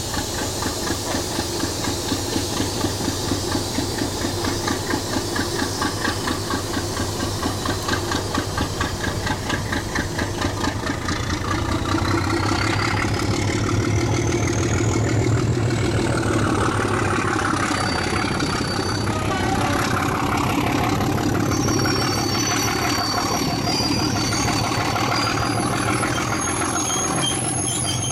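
Class 37 diesel locomotive 37906's Ruston RK270T engine working hard as it pulls away, heard from a coach of its train, with a regular beating rhythm. About eleven seconds in it grows louder and a high whine rises steadily in pitch for several seconds; short high squeals come through near the end.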